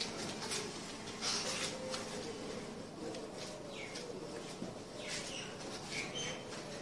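A cloth duster wiping a whiteboard clean: repeated swishing strokes of cloth over the board, with a few brief faint squeaks.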